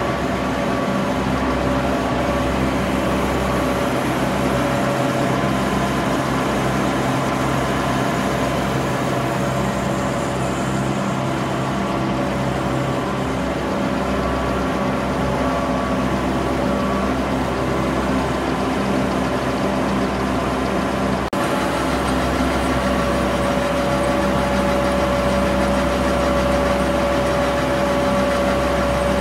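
A 1993 Sanden 851 six-color web offset press running: a steady mechanical drone with several constant hum tones. The hum changes slightly about two-thirds of the way through.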